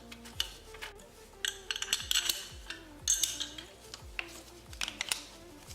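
Metal tools clicking and clinking against bolts and metal parts as front brake caliper bolts are unscrewed, over background music with a steady beat.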